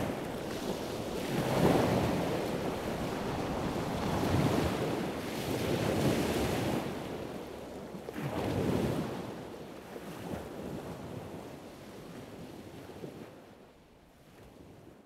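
Ocean waves washing in and drawing back, swelling every few seconds, then fading out near the end.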